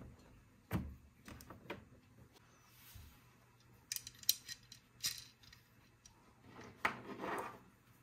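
Hard plastic toy parts of a Mickey Mouse Fun House playset being handled: scattered clicks and light taps as a piece is fitted onto the house and the red coaster car is picked up. There is a cluster of clicks about four seconds in, and a knock followed by a brief rub near the end.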